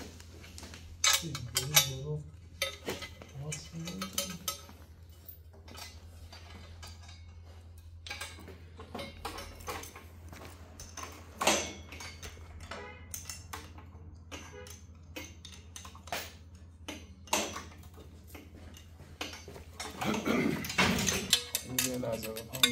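Irregular metallic clinks and clicks of a steel wrench and socket ratchet working the exhaust header flange bolts on an engine block.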